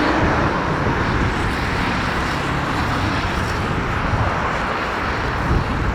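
Bombardier Challenger 600 business jet's turbofan engines running, a steady even rushing noise with no distinct whine, heard outdoors from the airport perimeter.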